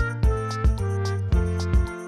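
Instrumental background music with sustained notes over a steady beat.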